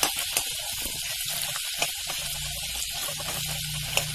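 Chopped onion, green chilli and garlic sizzling in hot oil in a steel kadhai, with a steel spatula scraping and clicking against the pan as it stirs. The onion is being fried lightly, not browned, before the leaves go in.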